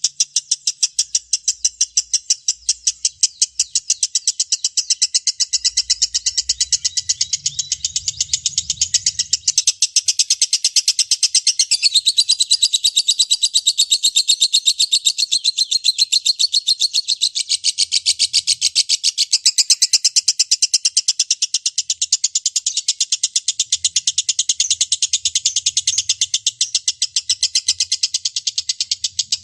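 Lovebird singing a long, unbroken 'ngekek' chatter: a rapid, high-pitched string of evenly repeated notes that runs on without a pause.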